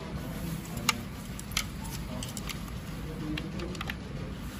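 Light clicks and taps of a circuit board and its cables knocking against a plastic housing while being handled. The sharpest click comes about a second in and another half a second later, then a few fainter ticks, over steady low room noise.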